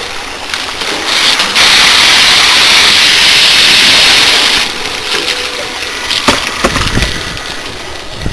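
A high-pressure water jet from a Davey Power Chief 105 pump's discharge hose blasts against a metal condenser coil, making a loud, steady hiss for about three seconds. The spray then eases, and a few sharp knocks follow near the end.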